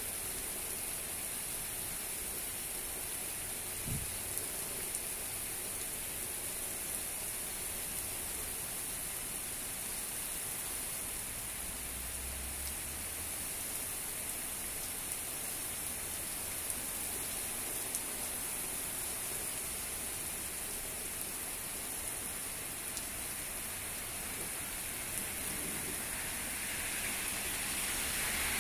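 Heavy rain pouring steadily from an intense downburst storm, with a car's tyres hissing past on the wet road near the end.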